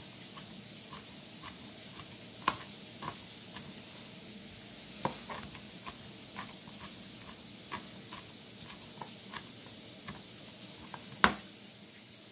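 Santoku knife mincing garlic on a cutting board: light, even taps of the blade about twice a second, with a few sharper knocks, the loudest near the end.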